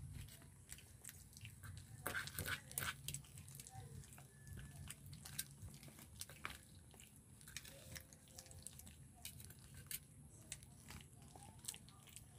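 Puppies eating from a plastic bowl: faint, irregular chewing and crunching with sharp clicks, busiest about two to three seconds in.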